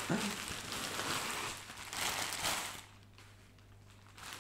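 Plastic postal bag rustling and crinkling as it is pulled off a bubble-wrapped parcel, dying away about three seconds in.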